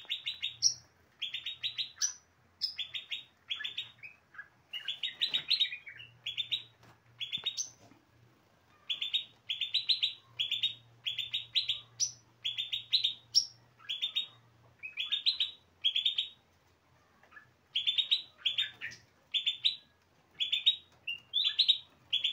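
Small songbirds in an aviary chirping: short bursts of quick chirps, about two bursts a second, some ending on a higher note, with brief pauses between runs.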